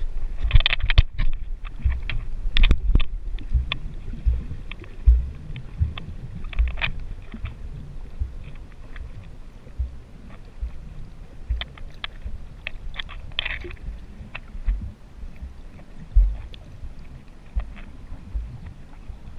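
Muffled underwater sound through a GoPro's waterproof housing: irregular low thumps of moving water against the housing, with scattered sharp clicks, thickest in the first few seconds and again about two-thirds of the way through.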